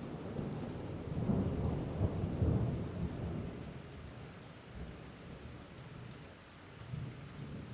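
Steady rain falling, with a low roll of thunder that swells about a second in and fades away after three seconds; a weaker rumble comes near the end.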